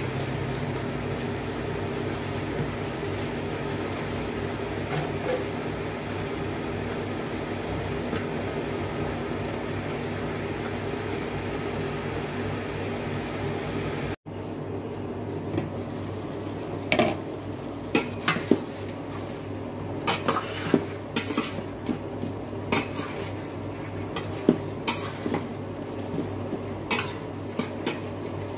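Chicken pieces sizzling steadily in a covered stainless steel wok. About halfway through, after a brief break, a spatula knocks and scrapes against the wok a dozen or so times as the chicken is stirred.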